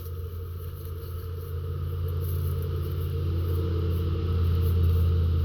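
Low engine rumble of a motor vehicle, growing steadily louder.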